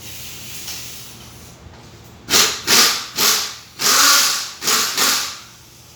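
Five short blasts of hissing compressed air in quick succession, each about half a second long.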